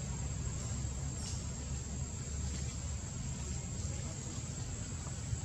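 Forest ambience: a steady high-pitched insect drone, with a low rumble underneath and a few faint clicks.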